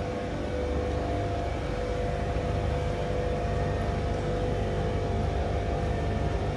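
Steady indoor room ambience of a museum gallery: a continuous low rumble and hum with a faint steady tone above it, no clear voices.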